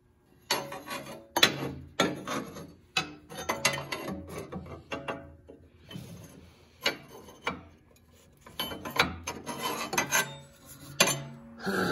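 Steel bar scraping and knocking against the square steel tubes of a tractor plow mount as it is slid and fitted into place by hand. The scrapes and clinks come irregularly, each brief, with short pauses between.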